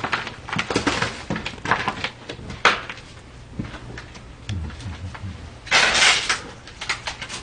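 Scattered clicks, knocks and rustling as a person moves about and handles things close by, with a louder rustle lasting about a second near the end.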